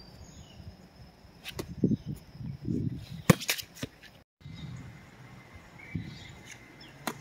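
Quiet outdoor background with a few sharp clicks, the loudest about three seconds in. There is a brief drop to dead silence just past four seconds, then faint high chirps.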